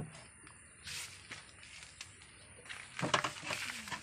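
Light handling sounds: a small knock at the start, then a cluster of soft clicks and rustling near the end as thin, dried chicharon sheets are pressed onto a stack on a wooden board.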